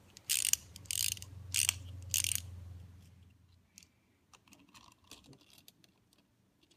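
Small clockwork wind-up toy train being wound by its key: the spring ratchet clicks in four loud bursts about every half second, then a few fainter scattered clicks.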